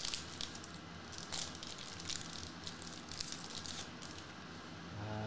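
Foil wrapper of a trading card pack crinkling and tearing as it is opened and the cards are taken out, a string of short crackly rustles that thins out about four seconds in.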